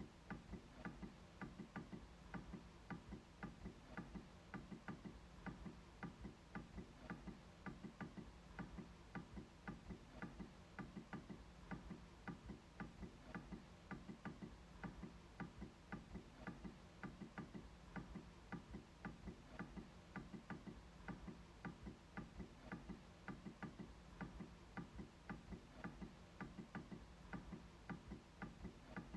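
MacBook trackpad being clicked repeatedly, faint, even clicks at about two to three a second.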